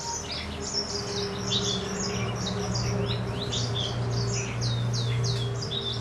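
Green singing finch (yellow-fronted canary, Serinus mozambicus) singing a fast, unbroken song of high, quick notes, many sweeping downward. A steady low hum runs beneath it.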